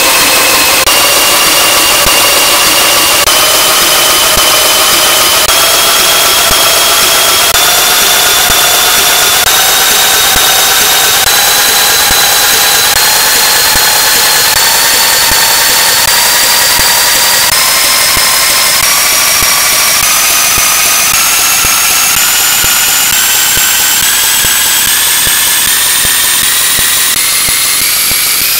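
Loud, harsh synthesized electronic noise carrying a pitched tone that climbs in small steps about once a second, rising faster toward the end.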